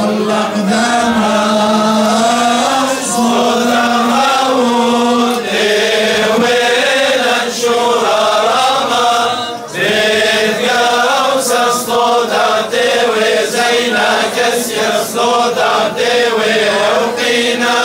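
A group of men's voices singing a chant together, joined in the second half by rhythmic hand-clapping.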